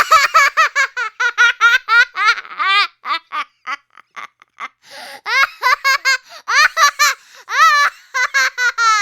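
A young child laughing hard, a rapid run of high-pitched laugh pulses that thins out to a few scattered ones partway through, then picks up again.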